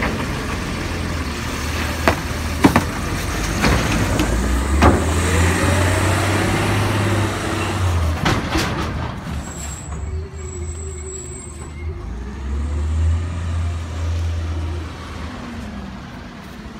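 Autocar side-loader garbage truck with a New Way Sidewinder body running while its automated arm dumps a cart and sets it down, with several sharp knocks from the cart and arm in the first half. The truck then pulls away, its engine running on and getting quieter.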